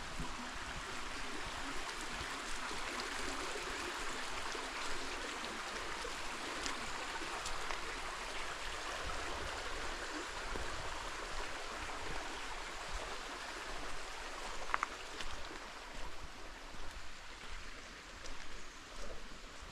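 Creek water flowing steadily over rocks, a continuous rushing and trickling that grows fainter and more uneven in the last few seconds.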